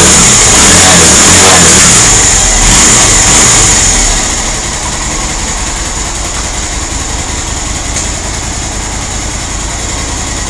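Q-Link Tour 250 motorcycle engine, run in during its break-in, revved louder for about the first four seconds and then settling back to a steady idle.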